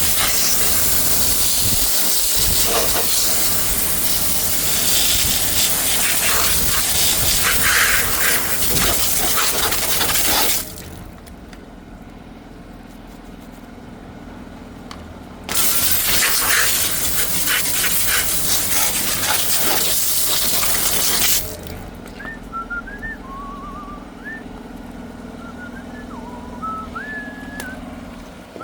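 High-pressure drain jetter spraying water: two long stretches of loud hiss, about ten seconds and then about six seconds, over the steady drone of the jetter's engine. After the second stretch the spray stops and a few short whistled notes are heard over the engine.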